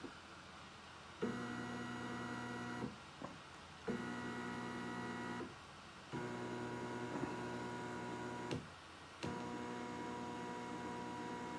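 Axis motors of a BF20 mill converted to CNC, whining steadily as the table moves under computer control. The moves come in four runs of about one and a half to two and a half seconds each, and each one starts abruptly.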